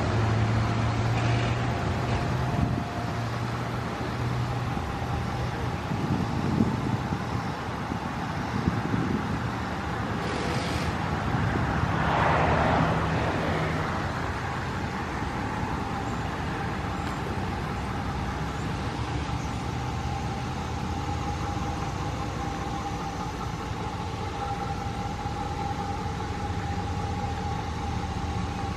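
Ram 1500 pickup idling steadily, a continuous low engine hum with a faint steady tone above it, and a brief swell of noise about twelve seconds in.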